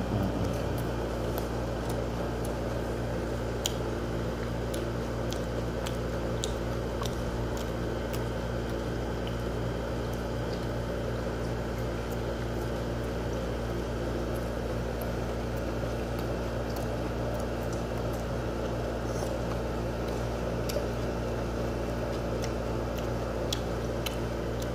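A steady machine hum, like a room air conditioner or fan, with a few faint scattered clicks.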